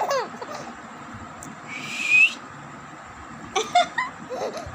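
Baby's high-pitched coos, short sounds that fall in pitch, with a breathy squeal about two seconds in.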